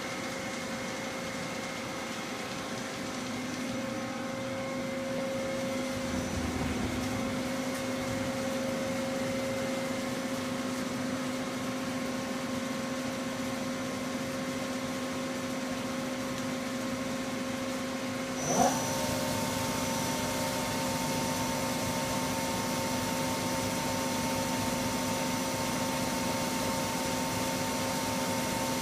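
Hwacheon Hi Eco 31A CNC lathe running under power: a steady machine hum carrying several steady tones. About two-thirds of the way in there is a brief knock, and a quick rising whine settles into a higher steady whine, with more hiss above it, as a drive on the machine spins up.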